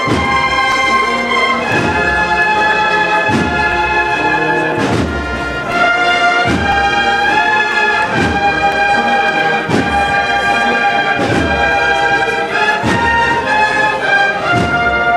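A Spanish Holy Week bugle-and-drum band (banda de cornetas y tambores) playing a procession march: held brass melody notes over a deep drum stroke about every second and a half.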